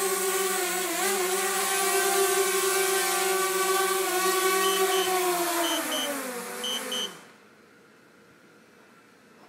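DJI Spark's motors and propellers whining steadily as it hovers, then spinning down with a falling pitch and stopping about seven seconds in. Three pairs of short high beeps sound as it winds down, and faint room noise is left after it stops.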